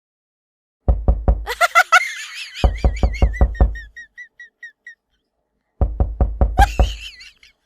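Three bursts of rapid, deep knocking, about six strokes a second, each burst joined by a high wavering tone; the tone trails on for about a second after the middle burst.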